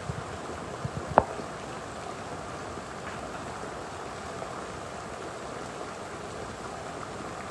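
Heavy rain pouring steadily, with one sharp knock a little over a second in.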